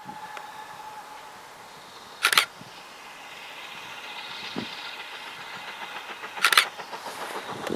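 A distant steam locomotive's whistle trailing off about a second in, then the faint sound of the steam train approaching. Two short, loud crackles break in, a few seconds apart.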